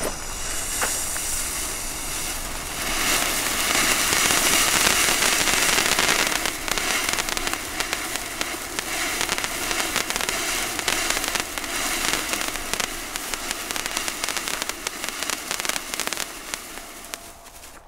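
Weco "Funny Fred" firework fountain burning: a steady hiss of spraying sparks with dense fine crackling, strongest a few seconds in and dying down just before the end.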